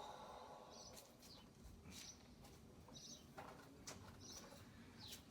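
Near silence, with a few faint, short high chirps from a bird, about four of them spread over a few seconds, and some soft ticks.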